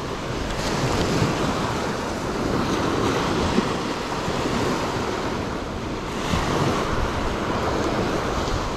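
Ocean surf washing onto a sandy beach, a steady wash that swells and eases, with wind rumbling on the microphone.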